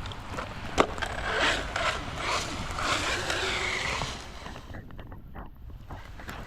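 Arrma Vorteks 3S RC truck on wet skatepark concrete: a sharp impact about a second in, then a few seconds of its wheels and motor scrabbling and scraping over the surface, dying away after about four seconds.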